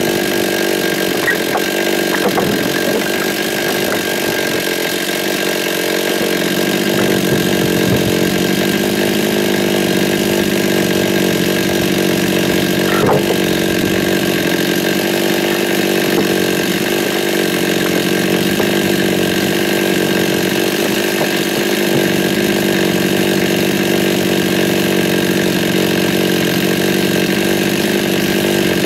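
A 52cc two-stroke chainsaw with a 20-inch bar running steadily at high revs as it cuts through stacked willow logs. The engine note sags slightly a few seconds in, then holds steady.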